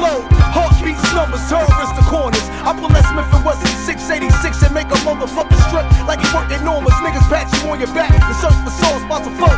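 Boom bap hip hop track: a beat with heavy, regular kick drums and a man rapping over it.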